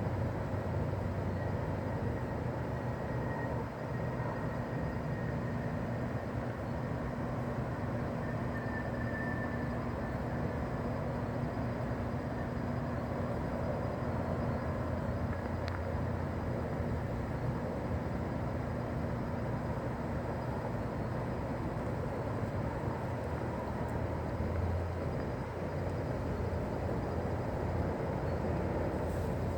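Honey bee swarm buzzing: a steady, dense hum of many wingbeats that keeps on without a break.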